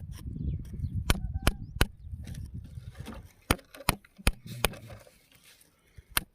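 A run of sharp knocks, like a hard object striking rock: about seven in uneven groups, over low rumbling handling noise.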